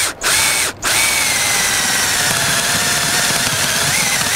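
Cordless drill boring a 1-inch spade bit into the edge of a door for the latch hole. It stops briefly twice at the start, then from about a second in runs steadily with a faint whine as the bit cuts into the wood.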